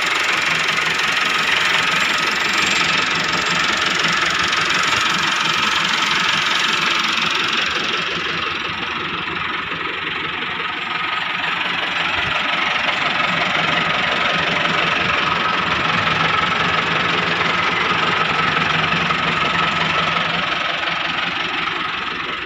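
Massey Ferguson 385 tractor's four-cylinder diesel engine idling steadily with its knocking diesel clatter, a little fainter for a few seconds midway.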